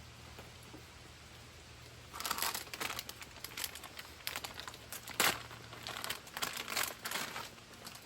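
Crinkling and rustling handling noises starting about two seconds in, with a sharper click a little after five seconds, as parts and cord are handled by hand.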